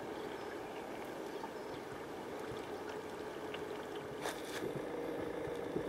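Steady rush of flowing river current under a steady low hum, with two sharp clicks a little past four seconds in.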